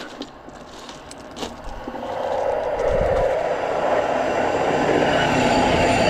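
A train passing close by, growing much louder about two seconds in and staying loud.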